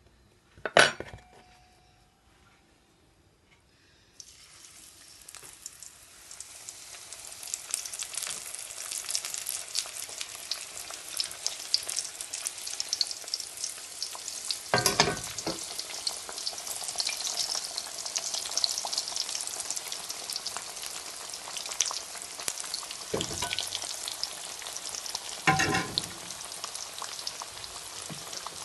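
Samosas deep-frying in hot oil: a steady sizzle that starts about four seconds in, after one sharp knock. A metal slotted spoon knocks and scrapes against the pan a few times while turning them.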